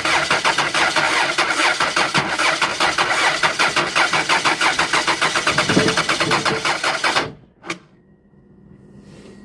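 Car engine turning over on the starter with an even, quick chug that does not catch, while being test-started after a connecting-rod bearing repair. The cranking cuts off abruptly about seven seconds in, and a single click follows.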